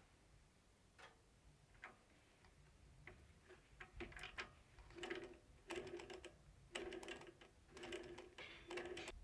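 Mini lathe headstock gear-change lever clicking as it is moved between its gear positions, then a run of short mechanical clatters with a low hum about once a second in the second half, as the headstock gears and chuck are turned.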